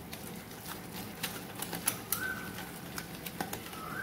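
Wire whisk beating a thick flour-and-buttermilk batter in a stainless steel bowl, the wires ticking and scraping against the metal in quick, irregular clicks.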